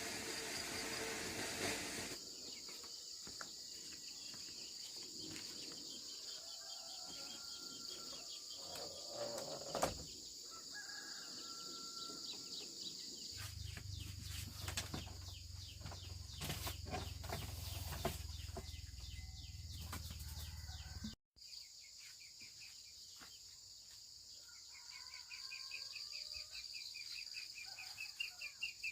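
Rural outdoor ambience: a steady high-pitched drone of insects, with birds calling now and then and a rapid pulsing insect chirp near the end. A low rumble runs for several seconds in the middle and stops abruptly.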